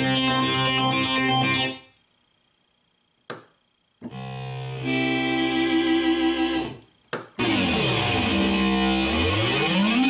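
Rhodes Chroma analog polyphonic synthesizer playing demo patches: a held chord cuts off about two seconds in, and after a short pause with a single click a new sustained patch swells in and fades away. Near the end a third patch plays with its pitches gliding down and back up.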